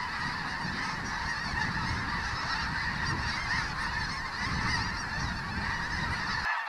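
A huge flock of snow geese calling overhead: a dense, continuous chorus of many overlapping high-pitched calls, with a low rumble underneath.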